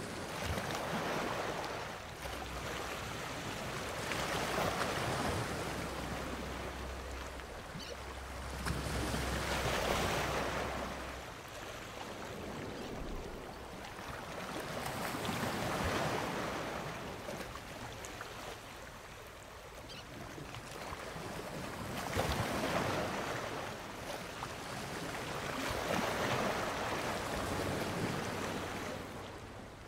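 Ocean surf: waves swell and break about every five to six seconds, with a steady wash of noise in between.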